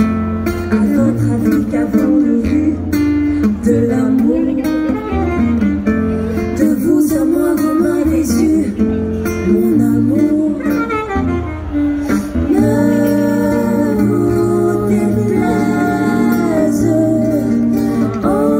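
Live band music: acoustic guitar and a low bass line under a singing voice, with long, wavering held notes in the second half.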